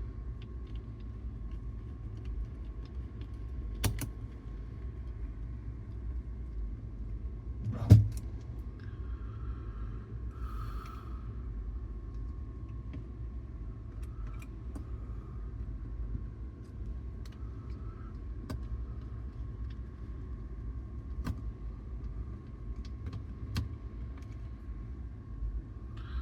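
Sparse small metal clicks and taps from a screwdriver and screws as a cassette deck's tape transport is screwed back together, the loudest about eight seconds in, over a steady low hum.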